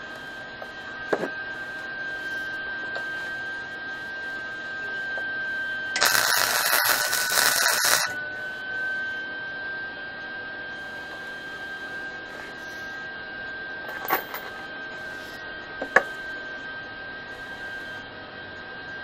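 MIG welder setup: a steady high electrical whine, with a loud two-second burst of hissing noise from the MIG gun about six seconds in, after which the whine dips briefly in pitch. A few sharp metal clinks from the steel chain being handled.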